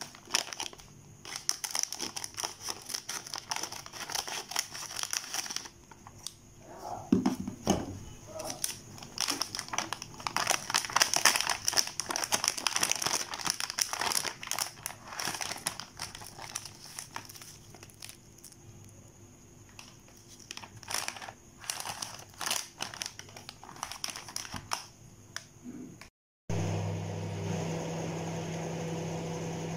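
Crinkly plastic food packets rustling and crackling as they are handled, in irregular bursts. Near the end this gives way to an LG microwave oven running with a steady low hum.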